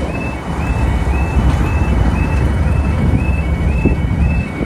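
Level crossing warning alarm sounding a repeated short yelping tone, two to three times a second, over the loud rumble of a diesel locomotive and its train passing over the crossing.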